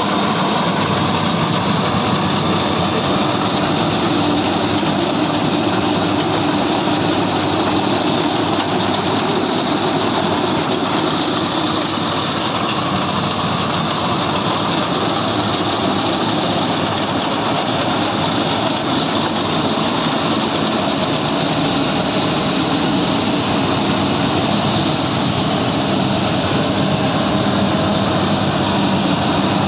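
Yanmar YH850 rice combine harvester working through the paddy, its diesel engine and threshing machinery running in a loud, steady mechanical drone as it cuts rice.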